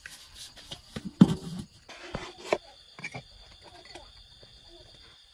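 Insects chirring steadily in the background, with a few scattered knocks and one louder thump about a second in.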